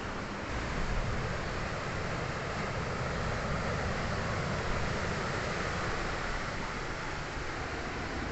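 Sea surf: waves washing onto the shore in a steady, continuous rush.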